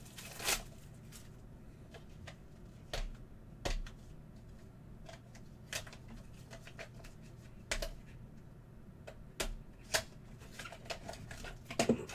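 Hands tearing the plastic wrap off a small cardboard card box and opening it: scattered crinkles, clicks and taps a second or two apart, with a quick cluster of louder clatter near the end as the box is tossed aside and the plastic card case is handled.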